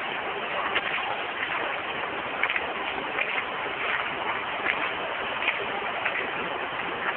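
Steady factory background noise, an even hiss, with a handful of short crackling ticks scattered through it.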